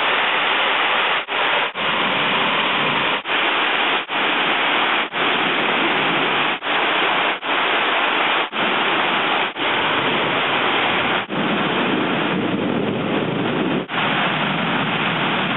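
Heavy thunderstorm rain pouring down, a steady loud hiss broken by about a dozen very brief dropouts.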